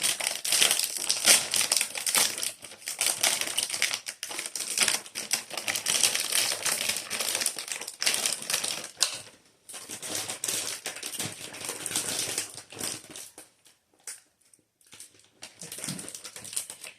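Crinkling of plastic pastry packaging: a dense run of rapid crackling clicks for about the first half, then sparser and quieter crackles with short pauses.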